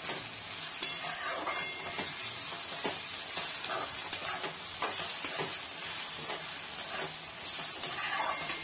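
Chopped onions and mint frying in oil in a metal kadhai, sizzling steadily, while a metal spoon stirs them and scrapes against the pan with irregular clicks.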